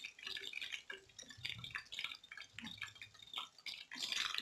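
Batter-coated chicken pieces deep-frying in hot oil in a kadai: an irregular crackle of small pops and bubbling. It grows louder and denser near the end.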